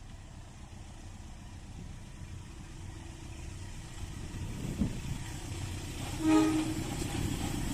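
Approaching train, its low rumble growing steadily louder, with one short horn blast about six seconds in: the driver's greeting toot.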